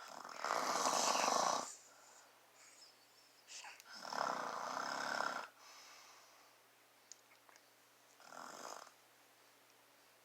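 A man snoring in his sleep: three snores, the first two long and loud, the third shorter and quieter.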